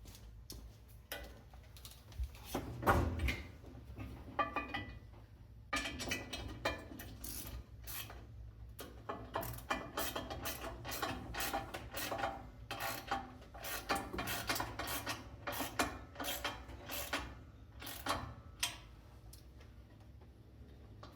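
Hand assembly of a table saw: scattered clicks, knocks and scraping of tools and metal parts being fitted and tightened, with busy runs of quick clicking through the middle, over a low steady hum.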